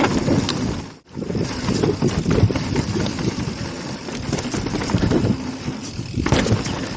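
Wind buffeting an action camera's microphone while riding a mountain bike down a dirt trail, with a rough, rumbling noise from the tyres and bike rattling over the ground. The sound drops out suddenly for a moment about a second in.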